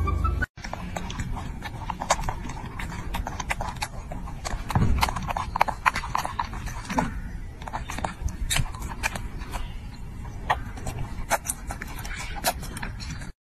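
Baby monkey eating grapes: many quick wet mouth clicks and smacks of chewing, irregular, over a steady background hiss. A brief snatch of music is cut off about half a second in.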